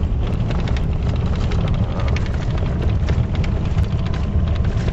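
Steady road and engine noise inside a moving vehicle's cab at highway speed: a loud low rumble with hiss over it, and scattered small knocks and rattles.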